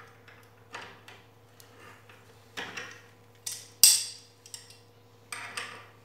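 Water-pump pliers clinking and scraping against the head of a steel screw as they are fitted on to turn the screw into a wooden chair leg: a string of short metallic clicks and clatters, the sharpest about four seconds in.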